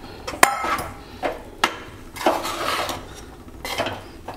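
Metal spoon stirring rice flour into boiling water in a metal pot, scraping and clinking irregularly against the pot, with one sharp ringing clink about half a second in. The flour is being worked into a thick cooked dough (ukad).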